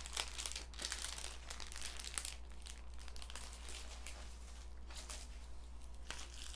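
Plastic bubble-wrap pouch crinkling and rustling in the hands, with irregular faint crackles.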